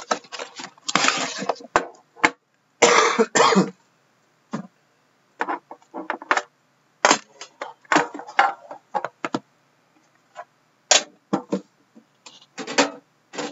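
Handling noises: a cardboard trading-card box and the camera being moved about on a wooden desk, in scattered knocks, taps and rustles, with two longer scuffing rustles about one and three seconds in.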